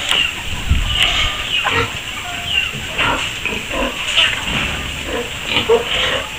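A pen of piglets grunting and squealing while they feed, many short overlapping calls at once.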